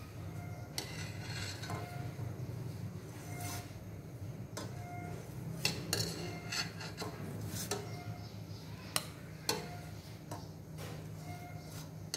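Long metal ladle skimming foam from a stainless steel pot of boiling broth, giving repeated light clinks with a short metallic ring as it knocks against the cookware. A steady low rumble runs underneath.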